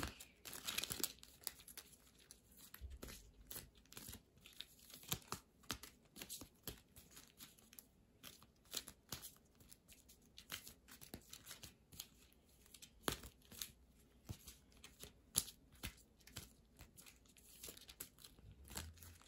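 Deck of reading cards being shuffled and handled by hand: faint, irregular flicks and rustles of card stock, with a few sharper snaps.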